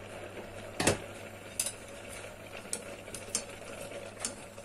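Chopsticks stirring spaghetti in a pot of boiling water, knocking against the metal saucepan several times, the loudest knock about a second in, over the steady bubbling of the water.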